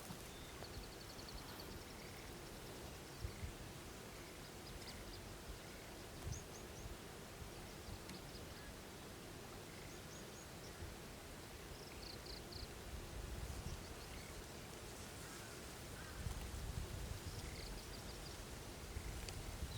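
Faint, short high chirps of small birds at scattered intervals over a steady outdoor hiss, with a low rumble building in the second half.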